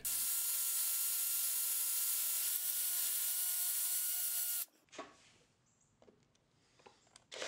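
Power drill boring into plywood, its motor running at a steady pitch for about four and a half seconds before cutting off suddenly. Then near quiet with a few faint clicks.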